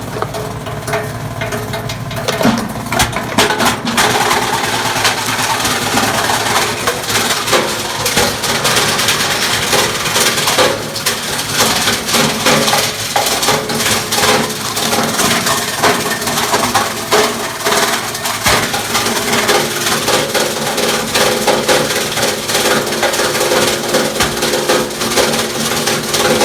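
Nelmor plastic granulator with two 9-1/2" blades chopping plastic bottles: a continuous loud clatter of rapid cracking and crunching as the blades cut the plastic, over the steady hum of the electric motor.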